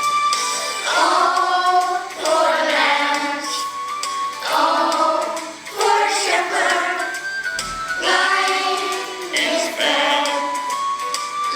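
A group of children singing a song together over an instrumental backing track, in phrases of a second or two.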